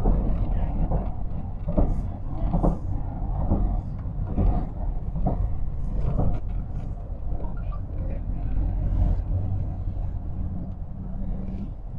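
Road noise inside a moving car: a steady low rumble of tyres and engine, with many brief knocks scattered through it.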